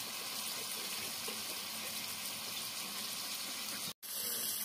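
Diced bottle gourd cooking in a wok: a steady hiss of sizzling and simmering, broken by a momentary silence near the end.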